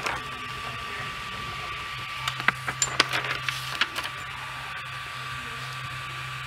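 Ender 3 V2 3D printer powered on, with a steady hum and a faint high whine. Over it, a sharp click at the start and a quick run of clicks and taps from about two to four seconds in, as the print head is moved by hand and a sheet of paper is worked under the nozzle for bed levelling.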